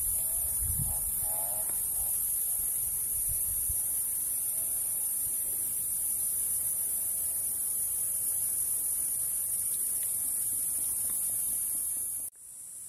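A steady, shrill, high-pitched drone from a chorus of insects, with low rumbles on the microphone in the first few seconds and a few faint chirps about a second in. The drone drops abruptly and changes character near the end.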